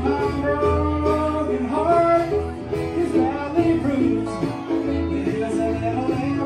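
A live country band playing an instrumental stretch between sung lines: plucked guitar over a steady bass, with a gliding lead melody line above.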